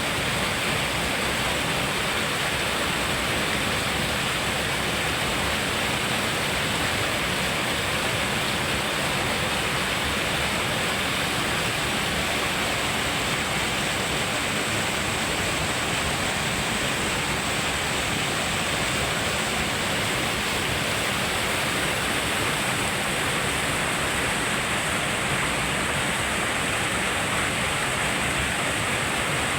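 Waterfall on a river, falling water rushing steadily in an even, unbroken wash of noise.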